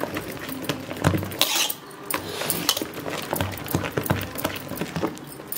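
A hand beating thick ground urad dal batter in a steel bowl to aerate it, with irregular wet slaps and squelches and bangles clinking against each other and the bowl.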